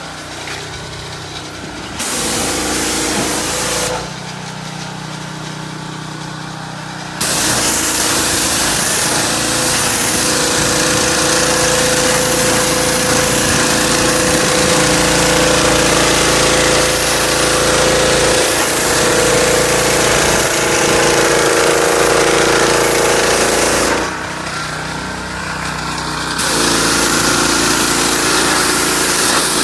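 Gas-engine pressure washer running steadily while its high-pressure spray hisses onto the car, rinsing it down before foaming. The spray starts and stops as the trigger is worked: a short burst about two seconds in, a long stretch from about seven seconds in, and a brief break a few seconds before the end.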